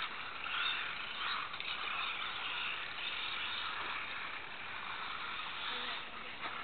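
Team Associated B44 1/10-scale 4WD electric RC buggy running, its motor and drivetrain whining, swelling and fading as the throttle changes.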